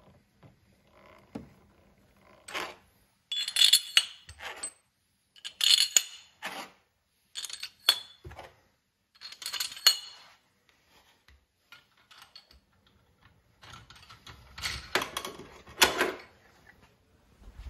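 Metal tools and engine parts clinking and clattering in several short bursts with ringing, separated by quiet gaps.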